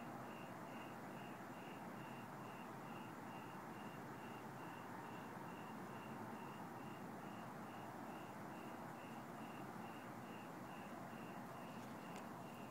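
A cricket chirping steadily, about two to three short chirps a second at one unchanging pitch, over a faint background hiss. There is a small click near the end.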